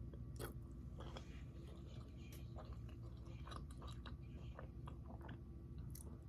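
A person chewing a mouthful of home-cooked food close to the microphone, with scattered small wet mouth clicks and smacks over a faint steady low hum.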